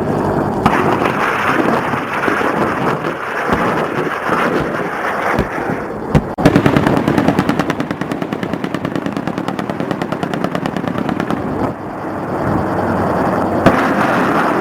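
Automatic gunfire. A long, rapid, continuous machine-gun burst breaks out about six seconds in and runs for roughly five seconds, over a steady rumbling din of the fighting.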